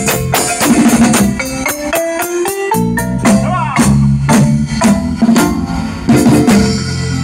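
Marimba band playing live: marimba melody over drum kit and congas, with a steady dance beat. About two seconds in the bass drops out briefly, then the full band comes back in.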